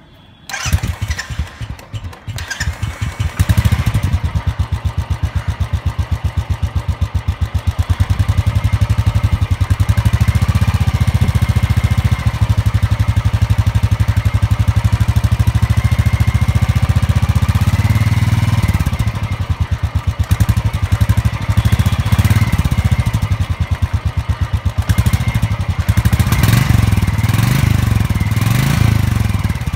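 Royal Enfield Bullet 350 BS4's single-cylinder engine, after its first service, comes to life about half a second in and settles within a few seconds into its steady idling thump. The throttle is opened briefly in a few rising-and-falling revs near the end.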